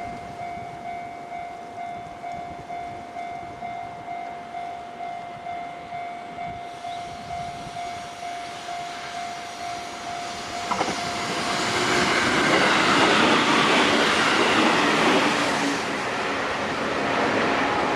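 Japanese level-crossing warning bell dinging steadily, about one and a half times a second. About eleven seconds in, a JR Freight freight train arrives: the loud running noise of its wheels on the rails rises and covers the bell.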